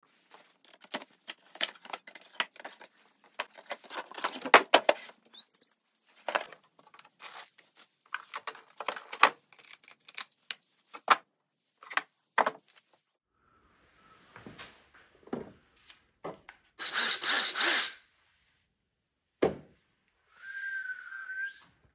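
Unboxing handling sounds: a run of rustles, clicks and knocks from a cardboard box and a plastic tool case, a louder rustling burst, and a single thump. Near the end a Mafell A18 cordless drill is run briefly, a steady whine lasting about a second.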